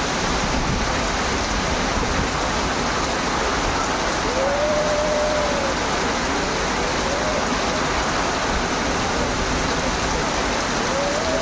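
Strong storm wind rushing steadily, with a faint whistling tone that rises and falls in pitch a few times.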